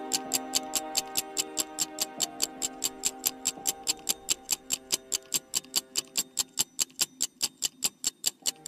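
Countdown-timer ticking sound effect, rapid even ticks about five a second, over soft background music that fades away in the second half.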